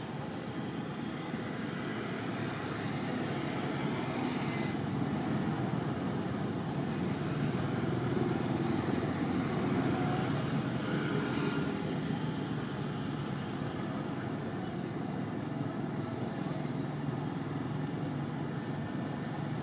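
Steady low rumble of distant engine noise, swelling a little around the middle.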